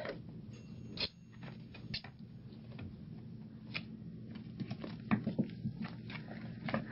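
A cat playing on a hardwood floor: scattered light taps and clicks from its paws and claws, a few at first and a busier run in the second half.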